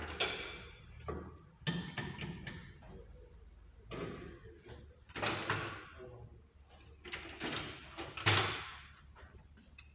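Hand tools clattering and scraping against a steel tool chest as they are picked up and put down: a string of separate metallic clanks and scrapes, some with a short ring, the loudest about eight seconds in.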